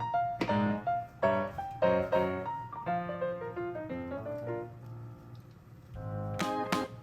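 Background piano music: a melody of struck notes that ring and fade, softening a little before sharper, fuller chords come in near the end.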